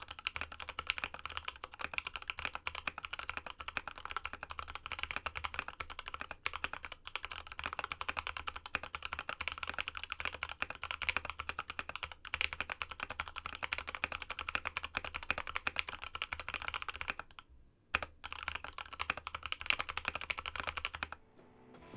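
Fast, continuous typing on a Space65 custom mechanical keyboard with lubed Tealios V2 linear switches, a carbon fibre plate, an aluminium case and MT3-profile PBT keycaps. The keystrokes run densely, break off briefly about three-quarters of the way through, resume, and stop about a second before the end.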